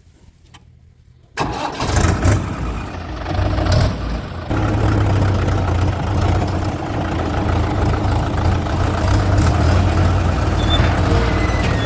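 A diesel engine of heavy machinery comes in suddenly about a second and a half in, then runs steadily with a strong low hum.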